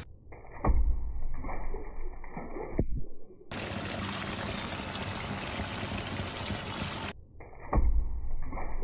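A whole hilsa fish splashing into a bowl of water in a steel sink, with a heavy thump followed by several smaller splashes. This happens twice, with a steady stream of running water between.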